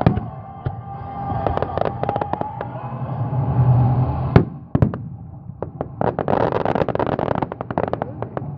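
Aerial fireworks bursting: a run of quick pops and crackles, one sharp loud bang about four and a half seconds in, and a dense spell of crackling near the end.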